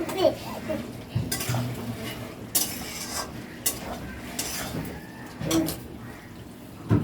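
A spoon stirring chicken in a cooking pot, scraping and knocking against the pot in irregular clatters every second or so.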